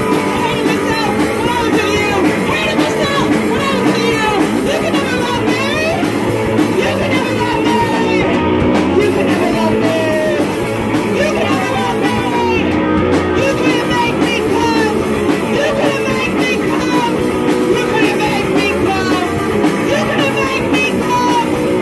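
Punk band playing live: drum kit, guitar and bass, with a vocalist singing into a microphone.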